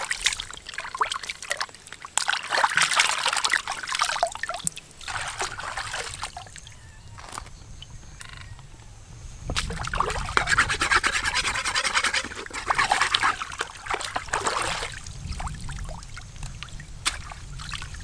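Hands splashing and sloshing stream water while rinsing crabs and swishing a small pot, in two spells of a few seconds each with quieter trickling between.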